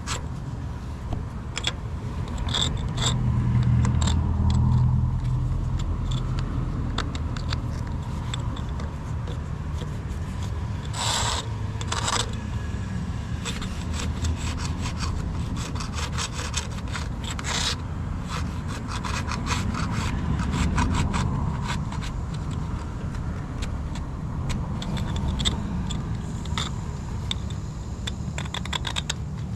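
Repeated scraping and rubbing with many small clicks, over a steady low rumble.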